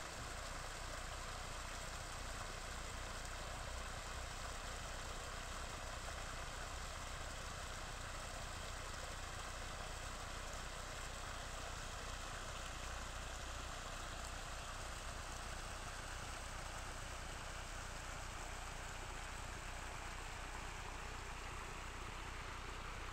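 Muddy rain floodwater rushing steadily over a gravel and dirt track: a continuous hiss with a low rumble beneath it.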